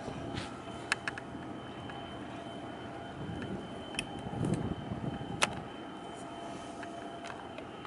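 Steady low outdoor background rumble, swelling a little around the middle, with a faint steady high tone and a few sharp clicks.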